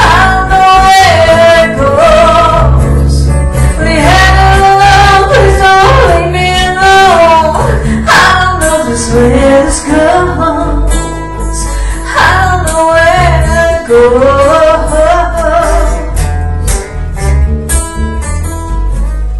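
Live acoustic music: a woman singing into a hand-held microphone over strummed acoustic guitar. Her voice drops out about fourteen seconds in, leaving the guitar strumming.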